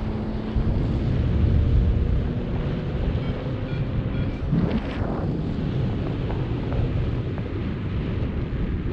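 Wind buffeting the microphone of a camera on a flying paraglider's harness: a steady low rumble, with a brief louder gust about five seconds in.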